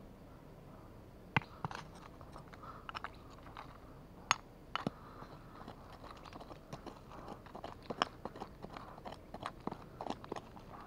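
A small metal hand tool digging and scraping into dry, stony soil, with irregular crunches of earth and gravel and a few sharp clicks as it strikes pebbles.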